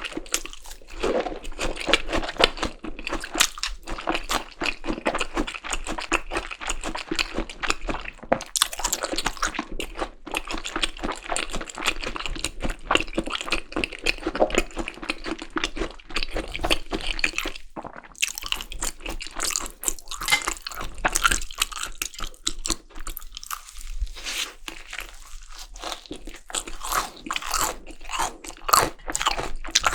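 Close-miked eating of Korean seasoned raw beef tartare (yukhoe) with julienned Korean pear: steady wet chewing and rapid crunching, with a couple of short lulls.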